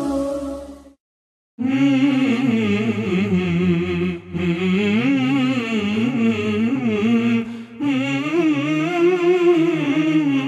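Background music with a singing voice carrying the melody. It fades out within the first second, and after about half a second of silence another song starts.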